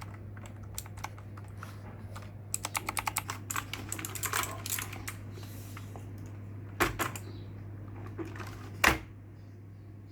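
Typing on a Havit KB498L mechanical keyboard with clicky blue switches: scattered key clicks, a quick burst of keystrokes about a third of the way in, then two louder single key strikes near the end, the last the loudest. A steady low hum runs underneath.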